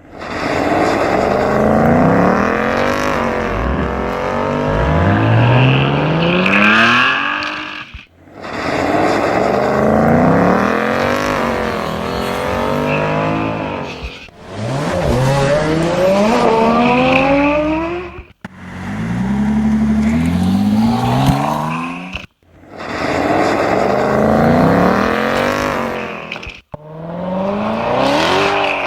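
Recordings of high-performance car engines spliced one after another, six clips in all. In each, the engine accelerates hard through the gears, its pitch climbing and then dropping at each shift. Each clip ends in a sudden cut-off before the next begins.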